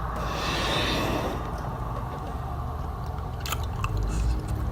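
Mouth noises of someone chewing soft, sticky homemade edible slime, with a soft hiss in the first second and a few small clicks near the end.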